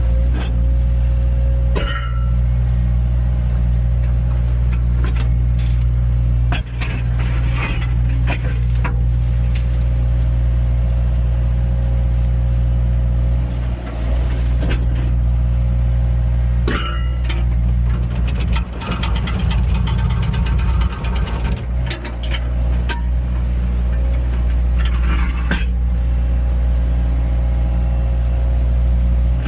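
Heavy equipment engine running steadily with a deep, constant hum, with scattered knocks and clattering throughout.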